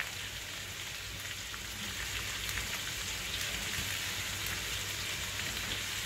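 Beef trimmings and chopped onion frying in a cast-iron pan over low heat: a steady sizzle with small crackles.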